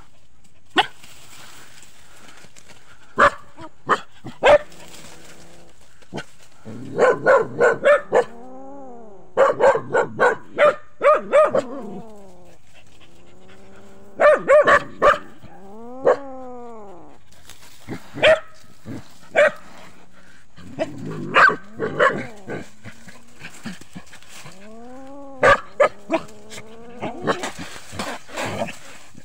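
Young kittens meowing repeatedly, high thin calls that rise and fall in pitch, with quick runs of short sharp cries in between.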